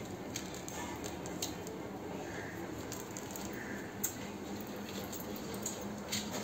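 Fingers sifting through puffed rice (khoi) in an aluminium basin, picking out unpopped paddy grains and husks: a soft rustle with scattered light clicks, the sharpest about four seconds in.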